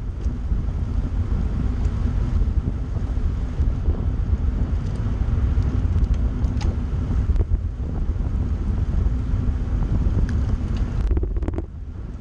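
Wind buffeting the microphone of a bike-mounted camera while riding at about 30 km/h: a steady low rumble that eases briefly near the end.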